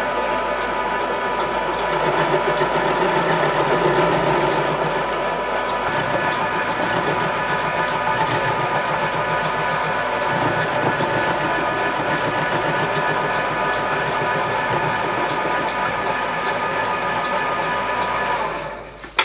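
Milling machine running with an end mill cutting a flat into a metal cylinder block, a steady machining sound with a constant whine. It winds down quickly near the end, followed by a sharp click.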